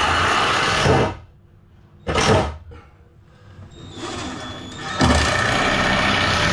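Cordless power drill-driver running in three bursts, the first and last about a second long and the middle one shorter, driving screws into timber ceiling battens.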